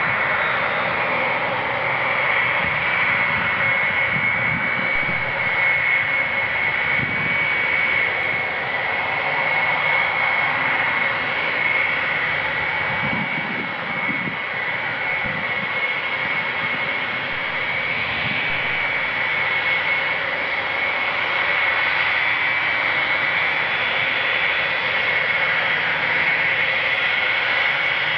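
Boeing E-3A AWACS's four TF33 turbofan engines running at taxi power: a steady jet engine rush with a high, steady whine on top.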